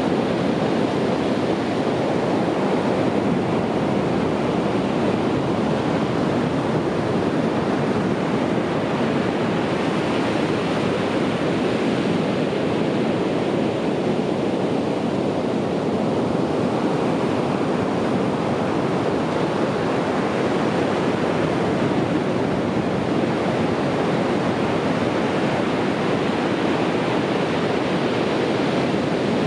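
Sea surf washing onto a beach: a continuous, steady rush of breaking waves that swells gently now and then, with no separate wave crashes standing out.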